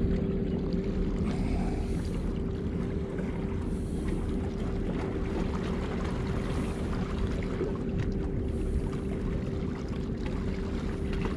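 Wind buffeting the microphone with a steady low rumble, over a constant faint hum.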